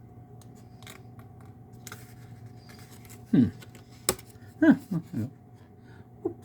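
Handling of a Blu-ray box set's packaging and booklet: light rustles, then a few short squeaky creaks that fall in pitch, with a sharp click about four seconds in.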